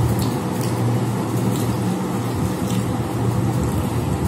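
A steady low hum, with a few faint small clicks from hands working food on metal plates.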